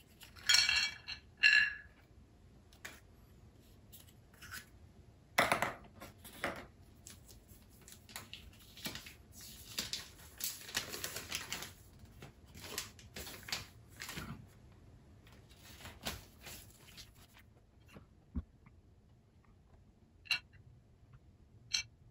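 A string of small clicks, taps and crinkly rustles of small objects being handled close to the microphone. It is busiest through the middle, then thins to a couple of sharp clicks near the end.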